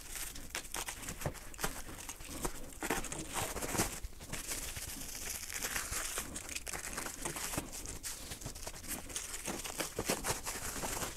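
Plastic packaging crinkling and rustling in an irregular run of small crackles as a parcel's plastic mailer and inner white wrapping are cut and pulled open by hand.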